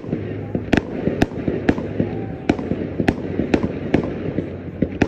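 Fireworks display going off: an irregular run of sharp bangs and pops, about two a second.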